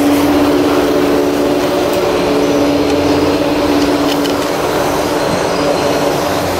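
Ski chairlift running: a steady mechanical hum with several held tones over an even rushing noise.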